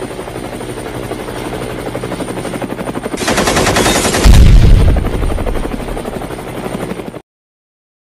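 Cartoon explosion sound effect: a fast rattling crackle that builds, a heavy boom about four seconds in, then a fading rumble that cuts off abruptly near the end.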